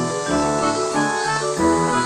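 Background music: a keyboard tune with a steady beat and bass notes.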